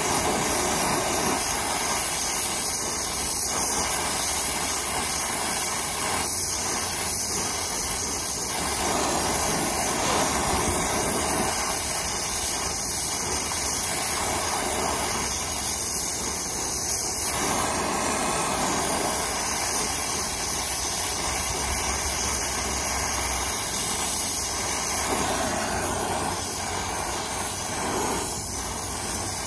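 Brazing torch flame burning with a steady hiss while copper refrigerant lines are brazed onto a heat pump's new reversing valve.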